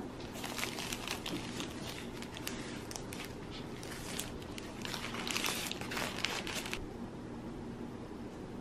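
Paper wrapper of a Subway sandwich crinkling and rustling as it is peeled open by hand, a run of crackles that stops about seven seconds in.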